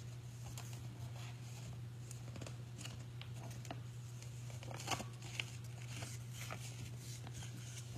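Soft paper rustles and handling noises as a picture book is opened and its pages turned. A steady low hum runs underneath.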